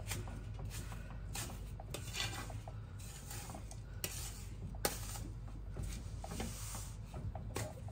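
A wooden spoon stirs and scrapes a dry, crumbly roasted flour and jaggery mix in a large metal pot, with repeated scrapes and an occasional knock of the spoon against the pot. The stirring works the jaggery lumps into the mix.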